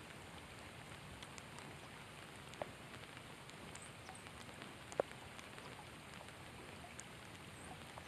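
Faint, steady rain falling on lake water, with a few sharper ticks of drops, the loudest about five seconds in.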